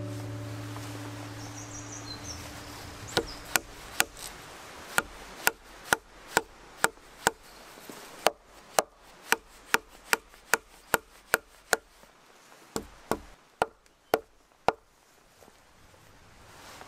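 A run of sharp wooden knocks, about two a second, as a blade is driven into a barked wooden pole to chop out a hole for a ladder rung. The knocks start about three seconds in and stop a couple of seconds before the end.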